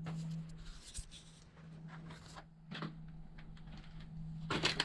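Scattered footsteps with small knocks and scrapes in an empty room, over a steady low hum, with a louder scrape near the end.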